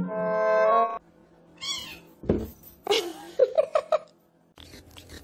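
A second of music, then a cat meowing several times, a few short wavering meows in quick succession, with a single thump about two seconds in.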